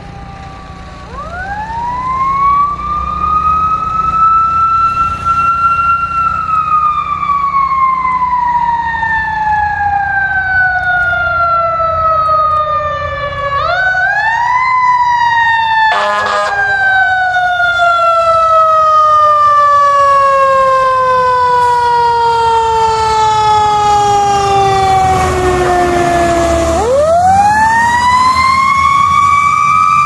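Fire engine's mechanical siren winding up to a high wail about a second in, then slowly coasting down in pitch. It is wound up again briefly about halfway and once more near the end. The truck's engine runs low underneath as it approaches and passes.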